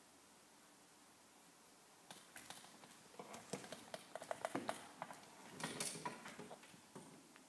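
Bare feet stepping and pivoting on a vinyl dance floor: faint, irregular footfalls and scuffs that start about two seconds in and come thickest in the middle, over the quiet hiss of a room.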